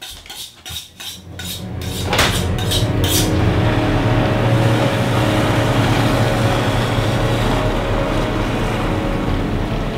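A few sharp clattering knocks for about two seconds, then a boat's outboard motor running steadily under way.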